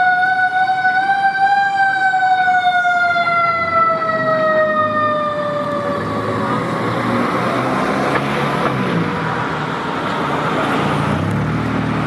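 Federal Q2B mechanical siren on a fire engine: its pitch rises a little, then slowly winds down and dies out about six seconds in. After it, the fire engine and traffic pass with steady road and engine noise.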